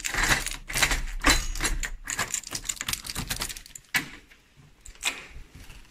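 Key turning in a door's cylinder lock, with the other keys on the ring rattling: a quick run of small metallic clicks and jingles for the first two to three seconds, then a few separate louder clicks near the end.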